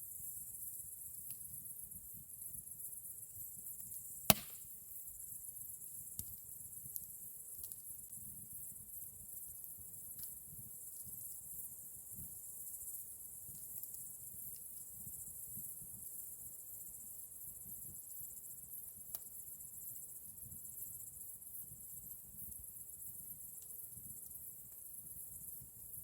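Campfire crackling: a single sharp, loud pop about four seconds in and a few fainter snaps later, over a low rumble of the fire. Crickets chirp steadily and high-pitched throughout.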